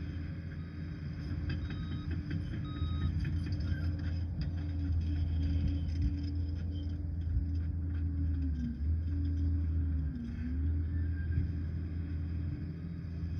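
Liebherr 746 crawler dozer's diesel engine running hard with a deep, steady drone, its pitch dipping briefly twice in the second half. Two short high beeps sound about two and three seconds in.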